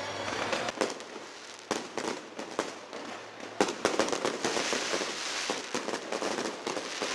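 Fireworks going off: a dense crackle of small pops with a few louder bangs among them.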